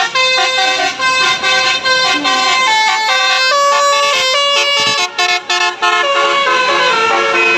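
Bus 'basuri' musical air horns, telolet-style, playing a loud melodic tune of stepped notes, with a few short breaks about five seconds in.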